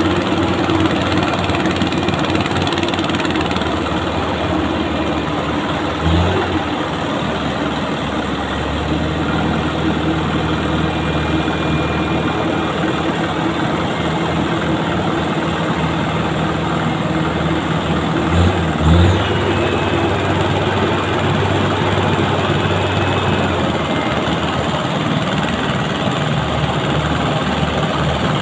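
Truck engine running steadily, with two brief revs, one about six seconds in and another about two-thirds of the way through.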